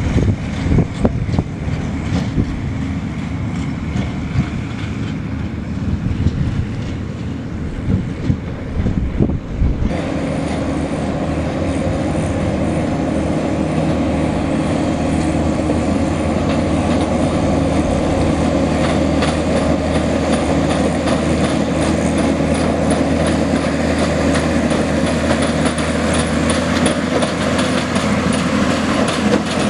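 Launceston heritage tram No. 29 running along its track: a steady mechanical hum with scattered wheel clicks on the rails, growing slightly louder as it approaches. The first stretch, about a third of the way in, is a low, uneven rumble before the sound changes abruptly.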